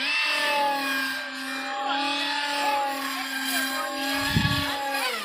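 Brushless electric motor and propeller of a homemade foam RC plane (2212 2200 KV motor, 6-inch prop) whining steadily in flight, the pitch wavering slightly with throttle. A brief low thump comes about four seconds in.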